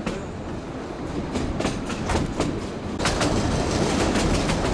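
Narrow-gauge passenger train running along the track: a steady rumble with irregular clicks and clacks of the wheels over the rails, growing louder about three seconds in.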